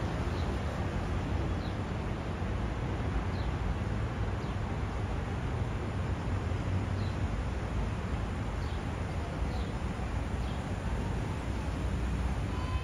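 Outdoor city street ambience: a steady low rumble of urban background noise, with faint short bird chirps every second or two.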